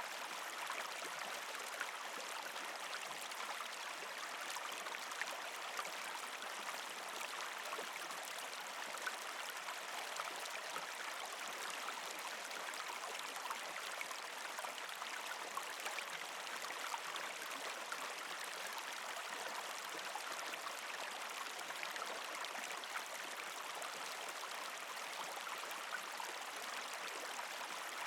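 A partially frozen creek flowing steadily over rocks, an even rush of water with many small splashes and trickles in it.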